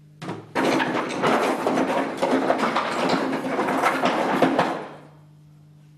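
Hands rummaging inside a coffin-shaped prop box, making a dense clatter of objects knocking together for about four seconds before it stops.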